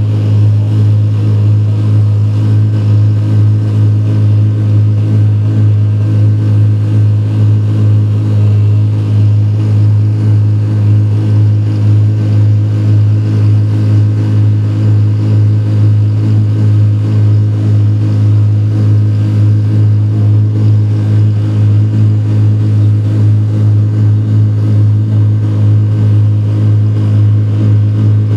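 A car engine idling steadily: one low, unchanging drone with no revving.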